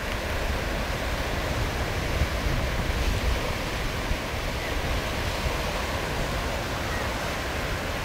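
Surf breaking and washing on a beach as a steady wash of noise, with wind noise on the microphone.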